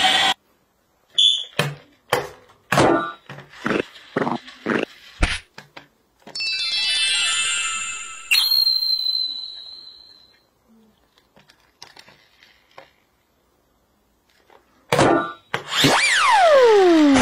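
A string of cartoon-style sound effects: a run of clicks and knocks, a sweep that ends in a ringing ding about eight seconds in, a pause, then a falling slide-whistle near the end.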